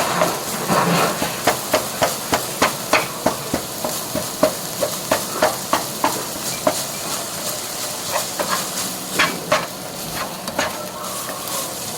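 A kitchen utensil knocking and clinking against cookware, about three sharp knocks a second, then slower and irregular for the last few seconds.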